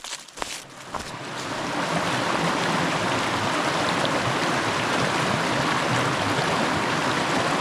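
A few footsteps on leaves and rock at the start, then a rocky mountain creek rushing steadily; the creek swells up over the first two seconds and holds.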